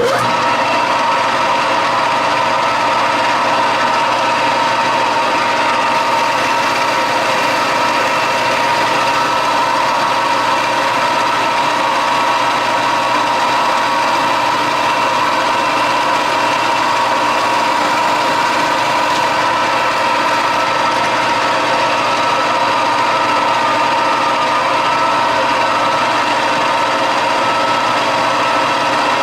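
Metal lathe running steadily under a light cut, about five thousandths off an R8 collet, a continuous machine noise that comes in abruptly at the start and holds level.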